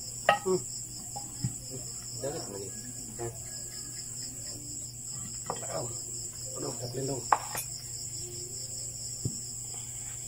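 Steady high insect chirping, with a few sharp clinks and knocks of metal parts as a boat transmission is taken apart by hand, the sharpest about seven seconds in.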